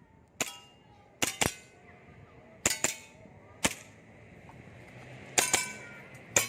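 Airsoft pistol firing about nine shots, mostly in quick pairs with pauses between them, as in an IPSC Action Air course of fire.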